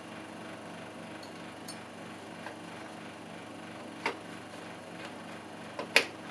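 A few short clicks and knocks of computer parts being handled and fitted back in a PC case, the loudest and sharpest about six seconds in, over a steady background hum.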